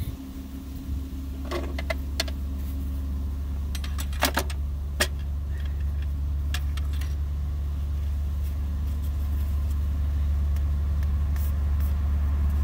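A steady low motor hum that slowly grows louder, with a few sharp metallic clicks and clinks about one and a half seconds in and again around four to five seconds in.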